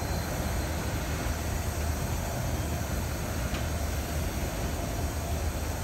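Freight train of boxcars rolling slowly past, a steady low rumble with a faint click about three and a half seconds in.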